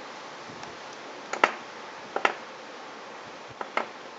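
Three quick double clicks, sharp and short, about a second apart, over a steady hiss.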